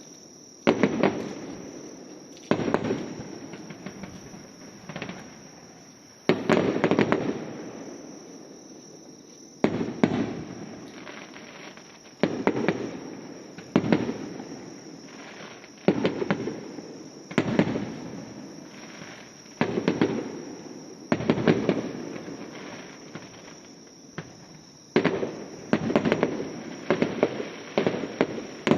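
Aerial fireworks shells bursting one after another, a sharp boom every one to two seconds, each trailing off over about a second. There is a short lull of about three seconds near the middle.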